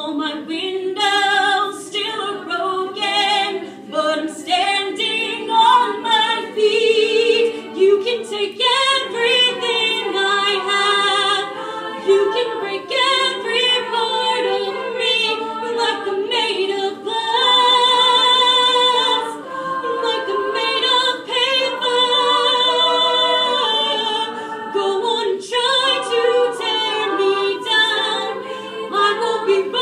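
All-female a cappella group singing a pop ballad in close harmony, voices only with no instruments.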